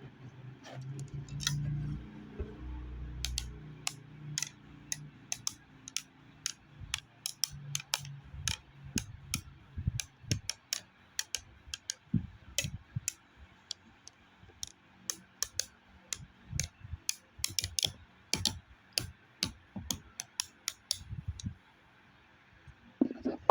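Irregular light clicks and taps, about two or three a second, with a low rumble under them for the first few seconds; they stop shortly before the end.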